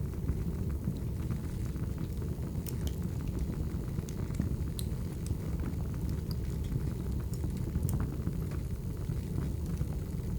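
Burning firewood crackling: a steady low rush of the flames with scattered sharp pops and snaps at irregular moments.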